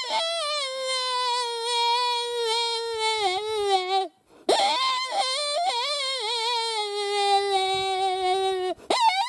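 Wolf howl call: two long howls, each held at a steady pitch and sagging at the end, with a brief break between them, then short quick yips starting near the end.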